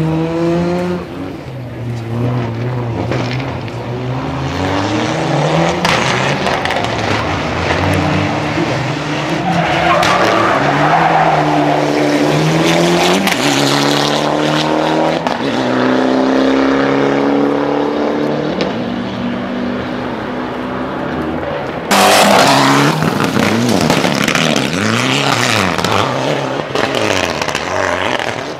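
Rally car engines revving hard on a stage, their pitch climbing and dropping again and again through gear changes, with tyre squeal and skidding. About two-thirds of the way through a sudden, louder rush as a car passes close.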